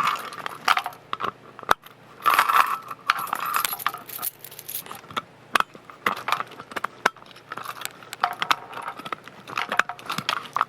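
Keys jangling, with metal clicks, clinks and knocks as a fire alarm pull station is unlocked with a key and its cover opened, plus bumps from the camera being set down.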